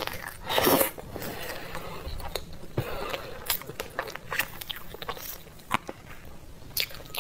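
Eating sounds of a soft layered cream dessert: a loud bite about half a second in, then chewing and wet mouth clicks. Short taps and scrapes of a spoon against a plastic cup come between them.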